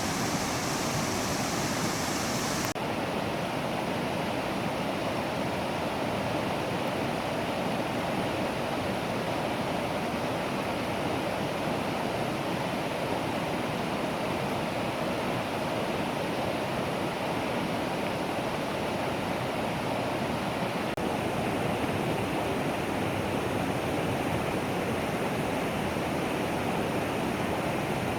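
Mountain valley stream rushing steadily over rocks, a dense, unbroken water noise. About three seconds in, the sound abruptly turns less hissy.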